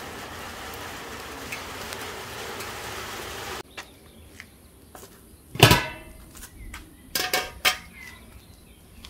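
A steady hiss that cuts off abruptly, followed by metal cookware clanking: one loud ringing clank about halfway through, then a quick run of three or four lighter clanks.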